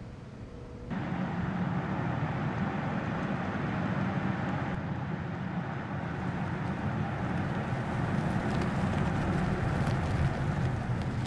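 Mercedes GLE SUV driving, a steady engine and tyre noise that gets suddenly louder about a second in. Near the end fine crackling joins it, as the tyres run onto loose gravel.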